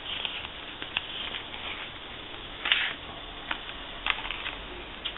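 Paper pages and card of a handmade paper-bag mini album rustling as they are handled and turned, in a few short bursts, the loudest nearly three seconds in.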